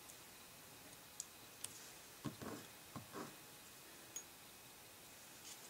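Quiet handling of a paper craft card: a few faint clicks, then two short soft rustles of card stock being moved about a couple of seconds in.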